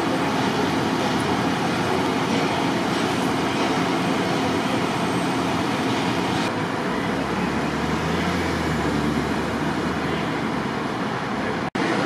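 Steady city street noise of traffic and running vehicle engines. A deeper engine rumble joins a little over halfway through, and the sound drops out for an instant just before the end.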